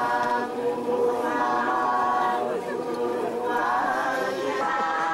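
Many voices singing a tuki song together in unison, in long held phrases with short breaks between them.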